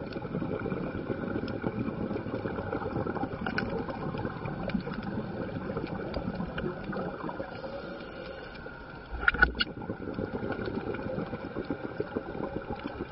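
Underwater noise picked up through a camera housing on a reef dive: a steady rushing rumble with scattered clicks, and a short, louder burst about nine seconds in.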